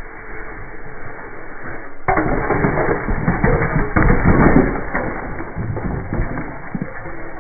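Red clay bricks of a flat funicular brick shell clattering and cracking as its middle collapses, knocking onto each other and the ground. The clatter starts suddenly about two seconds in, is loudest about four seconds in, then thins to a few scattered knocks.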